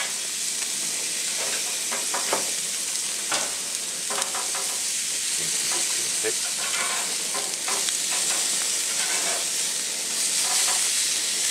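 Pork neck steaks sizzling as they sear on the hot cast grate of a gas grill run on full, at about 300 °C. Irregular clicks and scrapes of metal tongs on the grate as the steaks are turned.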